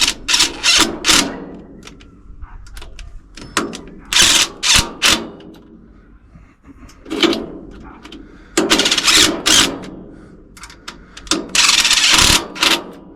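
Hand tools working on metal engine parts: sharp clicks and short rasping runs in several bursts, the longest near the end.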